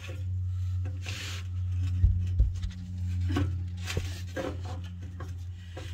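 A steel bracket being handled and set against a boat trailer's steel frame and carpeted skid: scattered knocks and scrapes, the loudest two close thuds about two seconds in, over a steady low hum.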